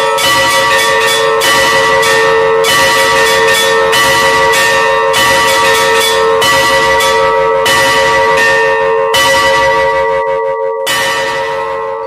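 Russian-style peal on three church bells, rung by ropes pulling their clappers, with quick, irregular strokes at about four a second over a steady ringing hum. The last stroke falls about a second before the end, and the bells ring on, fading.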